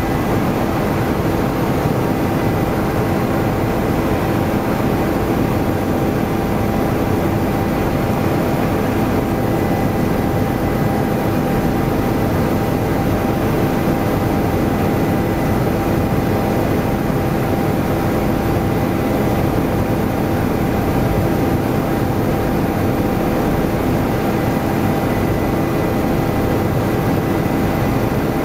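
Helicopter in flight heard from inside the cabin: a loud, steady drone of engine and rotor, with a few steady whining tones in it.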